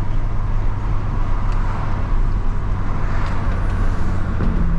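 Volkswagen Jetta TSI with a Stage 2 tune and downpipe cruising steadily: a continuous low engine drone mixed with road noise.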